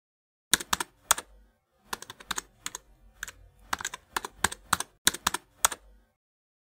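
Typing on a computer keyboard: about twenty separate keystroke clicks in an uneven rhythm, with a short pause after the first few.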